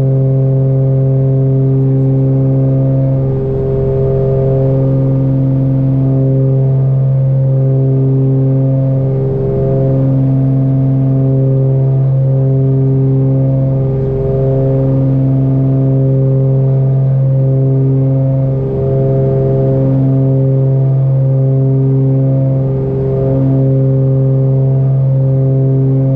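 Cessna 414A's twin turbocharged Continental six-cylinder piston engines and propellers droning steadily in flight, heard inside the cockpit. The drone is a strong low hum whose upper tones swell and fade, with a slow waver every four or five seconds.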